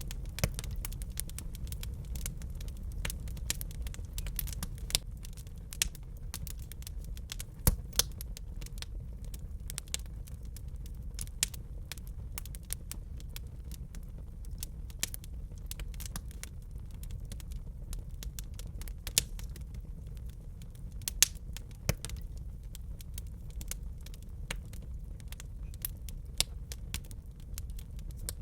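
Wood fire burning in a fireplace: irregular sharp crackles and pops over a steady low rumble, with a few louder pops standing out.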